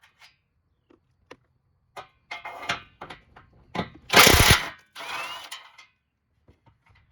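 A power tool runs in short bursts, loosening 13 mm nuts on the bumper reinforcement. The loudest, pulsing burst lasts about half a second, about four seconds in. Light metal clicks of the socket and tool come before it.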